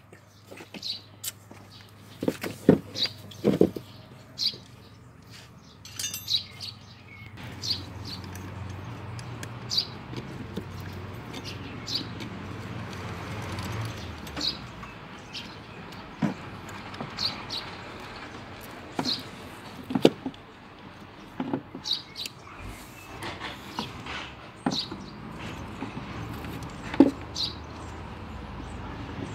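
Scattered clicks and knocks of a screwdriver and hands working in a scooter's battery compartment, with short bird chirps every second or two.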